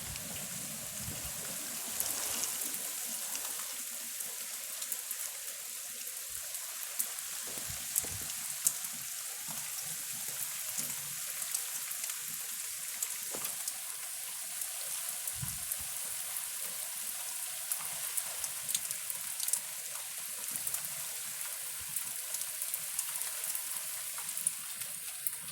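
Heavy rain falling steadily as a dense hiss, with frequent sharp taps of drops striking a hard surface close by and a few brief low thumps.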